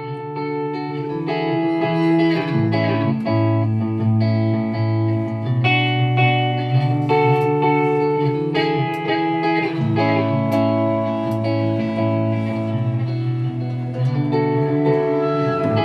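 Instrumental music led by plucked string instruments, notes changing over a low bass line.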